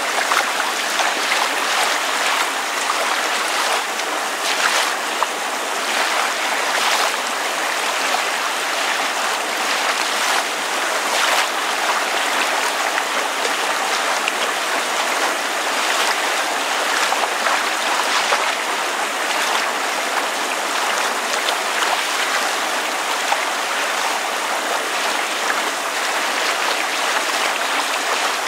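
Water lapping steadily, with rain falling on it, and soft irregular splashes now and then.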